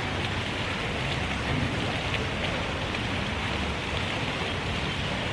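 Steady rain: a constant hiss with scattered faint drop ticks.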